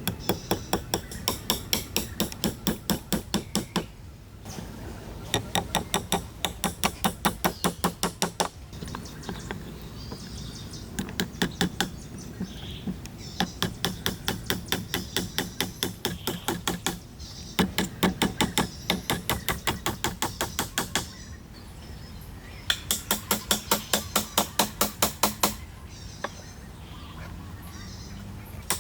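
A hand tool striking wood in quick, even runs of about four blows a second, each run lasting a few seconds with short pauses between.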